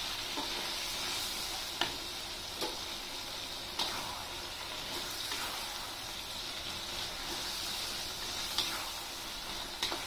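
Eggplant pieces and chili-shrimp-paste sambal sizzling in a metal wok while a metal spatula stirs them, with a few sharp clicks of the spatula against the wok.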